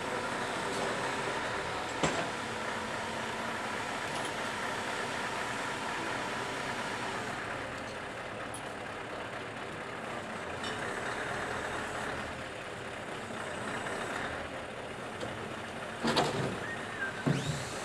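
Truck-mounted crane running steadily, its engine holding a timber wall panel on the hook. A sharp knock about two seconds in and a few louder knocks and bangs near the end as the panel is handled into place.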